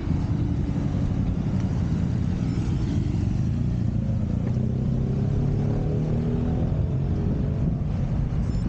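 Motorcycle engine running under way, its note climbing between about four and seven seconds in as it accelerates, over a low rumble of wind on the microphone.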